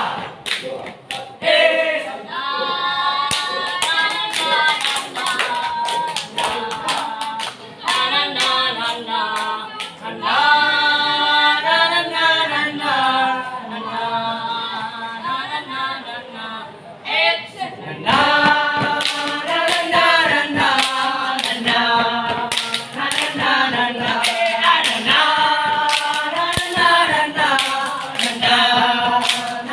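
A group of scouts singing a chant in unison without accompaniment, punctuated throughout by the sharp stomps and claps of a step dance.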